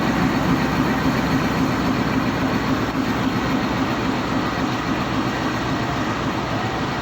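Train running on the track: a steady rumble of diesel locomotive and rolling stock, slowly easing in level, with no horn.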